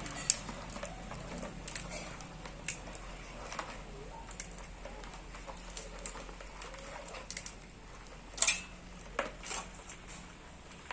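Scattered clicks and taps of hard mud-crab shell being handled, over a steady low hum, with a louder cluster of clicks about eight seconds in.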